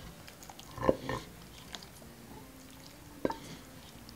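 Cooked meat-and-vegetable bun filling being scooped with a spatula into a glass bowl: a few soft wet plops and short knocks of the spatula against the bowl, the loudest about a second in and another just past three seconds.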